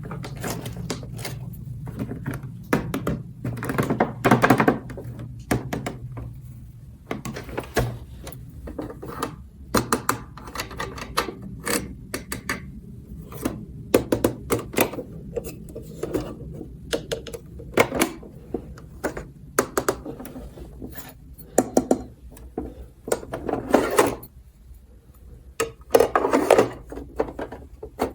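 Plastic toy pieces being handled: irregular clicks, taps and knocks of plastic on a hard surface, with a few longer bursts of rustling and scraping.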